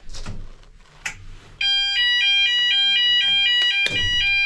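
A couple of sharp clicks, then about a second and a half in the building's fire alarm sounders start. They sound loudly and switch rapidly back and forth between two pitches, with a knock near the end. This is the alarm set off from a manual call point during a weekly test, which had been slow to set off.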